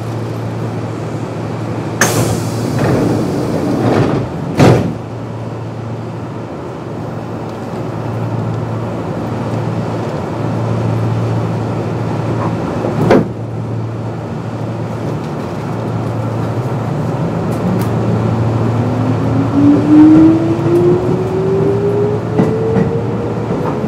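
Kintetsu 8600 series electric train (field phase control) standing at a station with a steady low hum. A burst of air hiss and two sharp thumps follow, then, about three-quarters of the way through, a whine rising steadily in pitch as the traction motors start the train moving and it accelerates.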